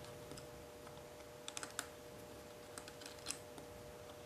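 Faint, scattered small metallic clicks of a T-handle Allen wrench working a screw out of a dual-action air sander's housing, in a few short clusters, over a faint steady hum.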